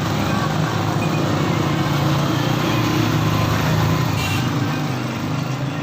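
Sewing machine running steadily at speed, with a fast, even mechanical chatter.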